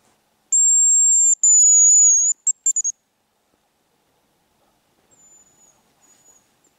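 Champion hazel grouse lure whistled to imitate a male hazel grouse's song: two long, very high, thin whistles, the second slightly falling, then a quick run of four short notes. Two much fainter high whistles follow near the end.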